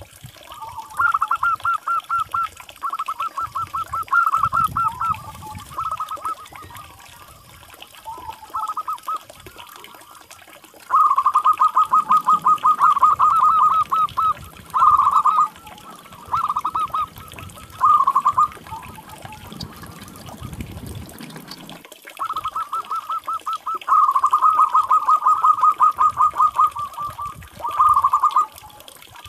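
Zebra doves (perkutut) calling: repeated trains of rapid staccato cooing notes, some brief and some running on for about three seconds.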